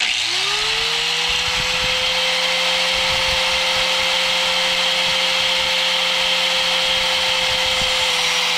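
Corded angle grinder switched on, winding up to full speed within the first second and then running at a steady whine, cutting through a steel winch cable.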